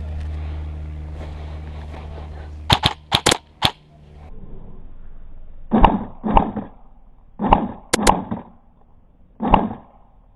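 Airsoft guns firing: a quick string of about five sharp snaps near the three-second mark, then single and paired shots spaced over the following seconds. A low steady hum runs under the first few seconds and fades out.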